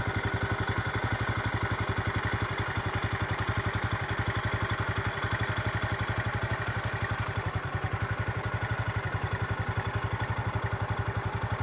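Small motorcycle engine running at a steady cruising speed, its fast even beat mixed with wind and road noise.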